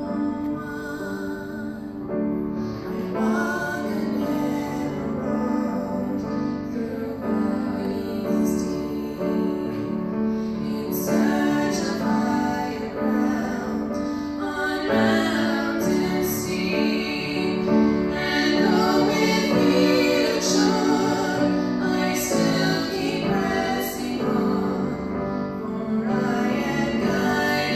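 Women singing a gospel song with a sustained instrumental accompaniment; the singing grows fuller about a third of the way in.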